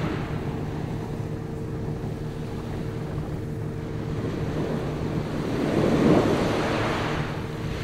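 Boat engine running at a steady hum, with a rush of wind and water noise that swells and fades about six seconds in.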